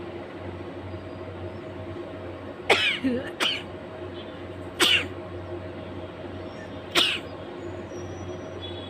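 A woman sneezing in four short, sharp bursts: two close together about three seconds in, then one near five seconds and one near seven, over a steady low hum.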